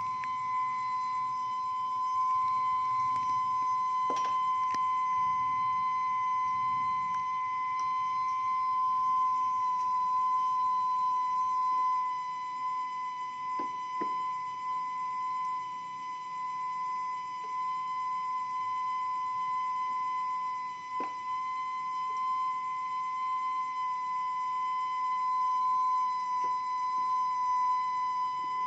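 Steady, unbroken whistle from a kue putu vendor's steamer, made by steam escaping through its whistle.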